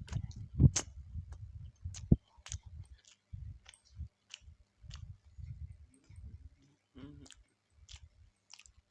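Close-up chewing of skewered fried meatballs: irregular soft chewing thuds with wet mouth clicks and smacks, a few sharper clicks in the first two seconds.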